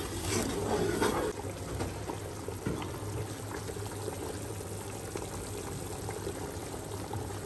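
A metal spoon stirring the masala and potato pieces in a steel pot for about the first second. Then the curry gravy with potatoes bubbling at a simmer, with small pops over a low steady hum.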